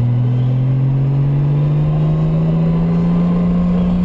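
Honda Gold Wing motorcycle engine running under power, its pitch climbing slowly and steadily as the bike gains speed, heard from the rider's seat.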